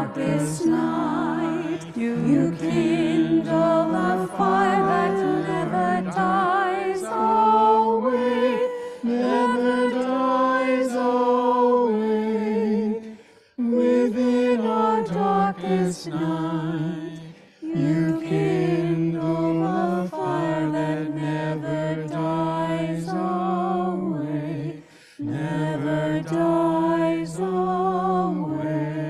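A small group of voices sings a slow sacred song together, with short pauses between phrases.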